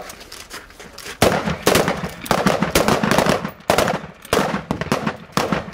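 Several rifles firing on a firing line, overlapping sharp shots in an irregular rapid string, starting about a second in.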